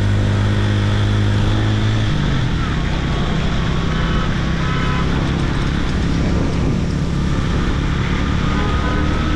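Motorcycle engine running at road speed under a steady rush of wind and tyre noise. The engine note drops to a lower pitch about two seconds in, then holds steady.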